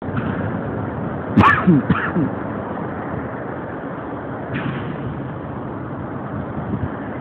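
Steady wind noise on the microphone over the rumble of a boat's engine, with a couple of short cries falling in pitch about a second and a half in.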